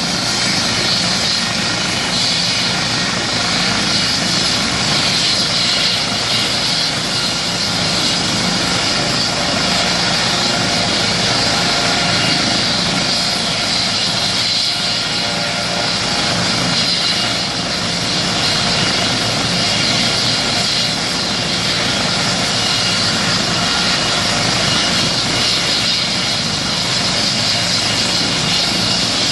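Eurocopter EC135 air-ambulance helicopter running on the ground before lift-off: a steady turbine whine over the rush of the turning rotors.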